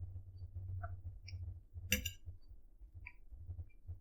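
Knife and fork clinking faintly against a plate while a steak is cut and eaten, with one sharper clink about two seconds in, over a low steady hum.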